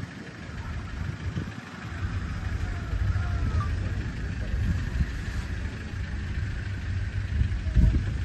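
Safari vehicle's engine idling with a low, steady rumble, with a couple of louder low bumps near the start and end.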